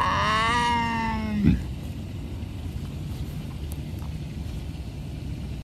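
Black panther giving one long call about a second and a half long, rising and then slowly falling in pitch and ending with a short knock. A low steady rumble follows.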